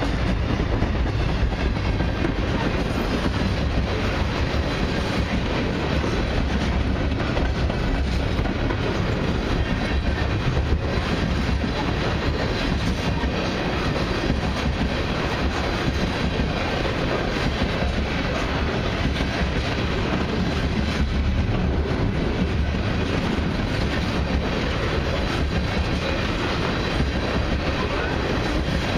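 Freight train tank cars rolling past at close range: a steady rumble and clatter of steel wheels on rail.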